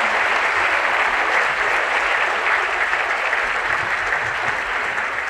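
Large audience applauding, a steady dense clapping that thins out near the end.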